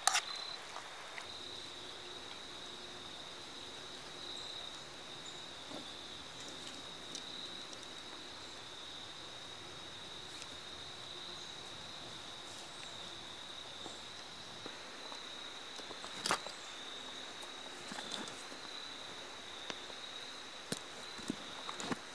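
Insects trilling as one steady high tone throughout. A few light clicks and rustles in the second half come from a canvas pack with leather straps and brass buckles being handled.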